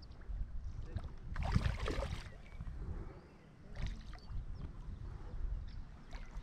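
Hooked trout splashing at the water's surface beside the landing net: a long splash about a second and a half in and a shorter one near four seconds, over a low steady rumble.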